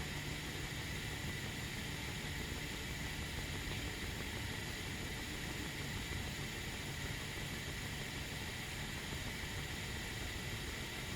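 Tea kettle heating on a stove well before the boil: a steady hiss with a low hum underneath, unchanging throughout.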